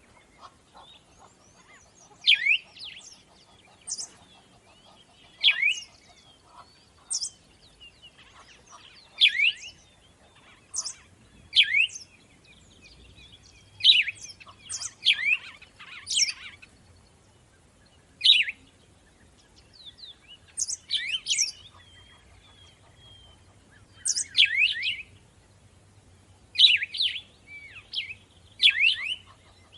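Songbirds chirping: short, sharp calls repeated every second or two, with fainter chirps in between.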